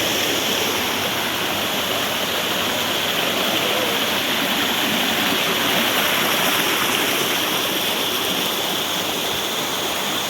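Rushing water of a waterfall and rocky forest stream, a steady, even noise.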